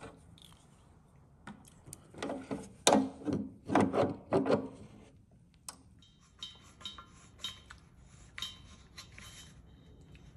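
A brass propane hose fitting being handled and threaded by hand into the gas inlet of a RIDGID forced-air propane heater. First comes a cluster of sharp metallic clicks and knocks, then a run of lighter ticks at about two a second as the fitting is turned.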